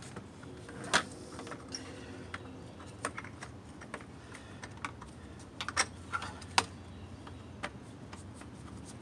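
Scattered light clicks and taps of a hand screwdriver driving a screw into the plastic grille panel of a 2003 Hyundai Santa Fe, with the plastic knocking as it is held. The sharpest clicks come about a second in and around six seconds.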